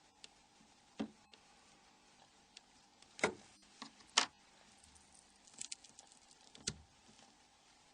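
Light, scattered clicks and taps of small phone parts and hand tools being handled, about half a dozen separate knocks with a small cluster near the end.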